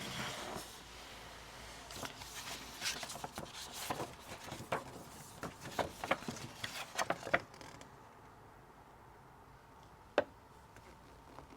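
Items from a book subscription box being handled: a run of quick, irregular taps, clicks and rubs for several seconds, then a quieter stretch and one sharp click near the end.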